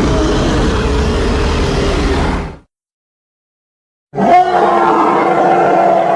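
Giant-gorilla roar sound effect played twice: a long growling roar of about three seconds, then after a second and a half of dead silence a second roar starting about four seconds in.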